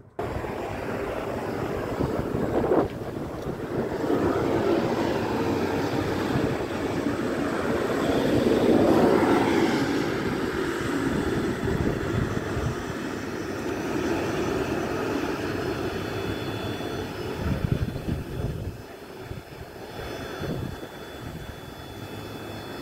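An Endeavour diesel railcar running past close below, its engine and wheels making a continuous rumble that builds to its loudest about nine seconds in and then slowly fades.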